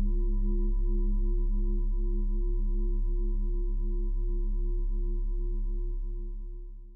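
Outro music: a sustained drone of a few steady tones over a deep hum, ringing like a singing bowl, with a slow waver about three times a second. It fades out near the end.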